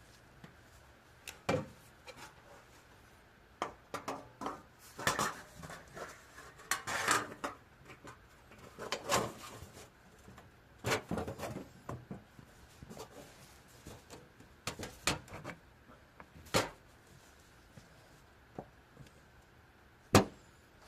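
Irregular knocks, clicks and short rustles of objects being handled, spread unevenly through the stretch.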